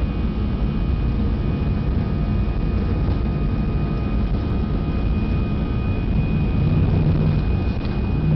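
Airbus A319 cabin noise as the airliner rolls along the ground: steady jet-engine whine over a low rumble, growing a little louder near the end.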